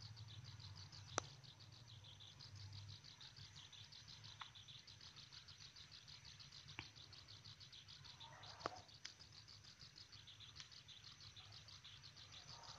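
Near silence with faint, quick, repeating high chirping like crickets. A few sharp clicks of a steel spatula against a stainless pan, the loudest about a second in.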